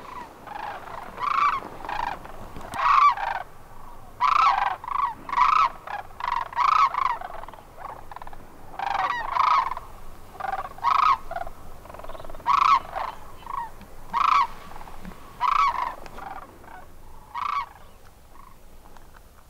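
Large birds calling over and over: short, loud calls in quick groups of two or three, stopping a couple of seconds before the end.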